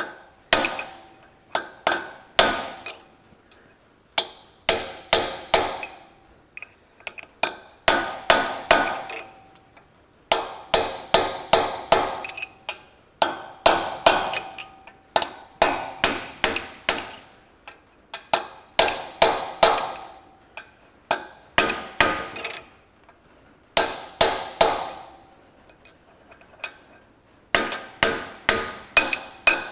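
Hammer striking a steel drift to drive a wheel bearing onto the front hub housing of a John Deere 4WD tractor. Runs of sharp metallic taps, about two a second, each with a short ring, broken by brief pauses.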